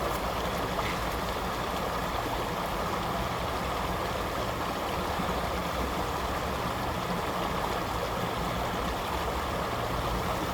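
Creek water running steadily over rocks, a continuous rushing.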